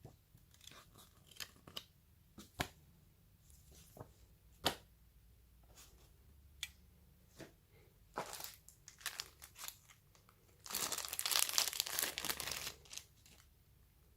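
Packaging being handled during a phone unboxing: scattered clicks and taps, then about two seconds of wrapping crinkling and tearing near the end.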